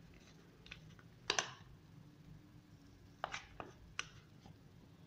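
Metal spoon mashing boiled potatoes in a bowl: a few faint, scattered clicks and taps of the spoon against the bowl. The loudest comes about a second in, with three more close together near the end.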